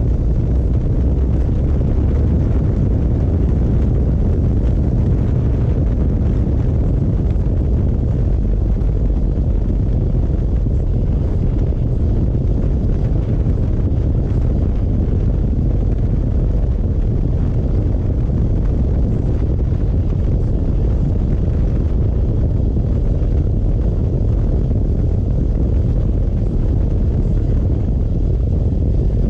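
Harley-Davidson Road Glide's V-twin engine running steadily at road speed, mixed with a deep, even rumble of wind on the microphone.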